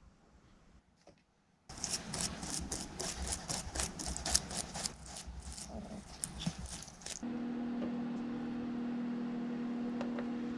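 Low room tone, then from about two seconds in a run of light clicks and rattles. About seven seconds in a small electric motor takes over with a steady, even hum.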